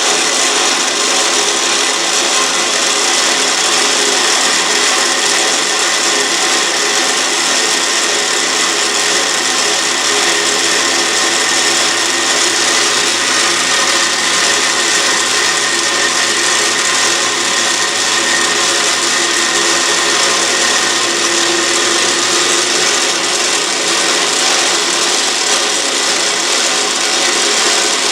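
Autobox 8x16 mini lathe running under power feed, its cutting tool taking a cut in a Delrin workpiece. It makes a steady whirring, rasping noise, with a low hum that joins in for a stretch in the middle.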